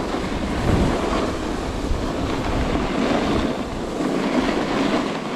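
Snowboard sliding and scraping over snow with a steady rush and low rumble, and wind buffeting the microphone.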